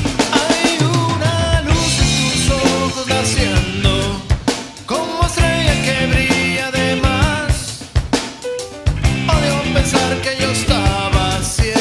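Rock band recording: a drum kit keeps the beat with snare, rimshots and bass drum under pitched instruments.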